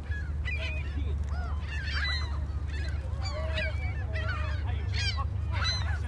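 A flock of gulls calling, many short overlapping squawks and cries, over a steady low rumble.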